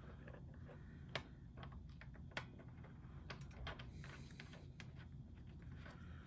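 Faint, irregular clicks and taps of a metal oil drain plug being threaded by hand into a scooter's crankcase, over a low steady hum.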